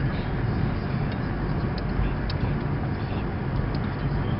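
Steady car engine and road noise from a car being driven.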